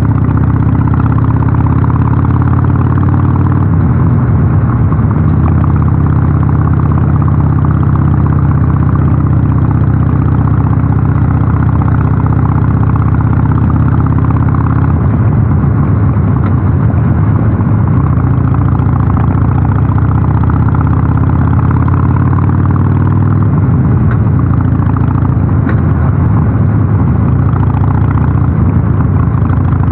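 Harley-Davidson Sportster 883's air-cooled V-twin running steadily through a North American-spec muffler, its pitch shifting a few times.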